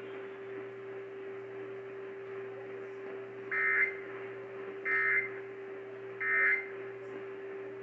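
Emergency Alert System end-of-message data code over AM radio: three short bursts of warbling data tones, each about a third of a second and spaced about a second and a half apart, near the middle. Under them run faint static hiss and a steady low tone.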